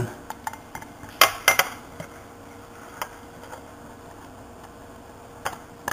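Light clicks and taps of small parts being handled inside an opened iPod as the earphone-jack ribbon cable connector is pressed into its socket. A quick cluster of clicks comes just over a second in, followed by scattered single ticks.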